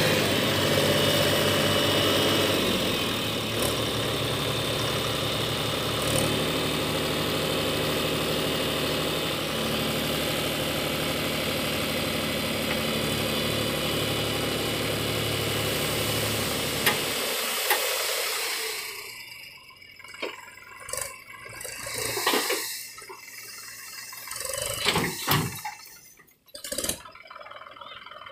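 Mahindra tractor diesel engine running steadily as the trailer bed tips. The engine sound stops about two-thirds of the way through, leaving scattered knocks and rustles.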